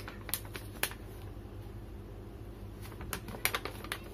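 Scattered sharp clicks and taps of small items being handled during an unboxing: two in the first second, then a quick cluster of four near the end, over a low steady hum.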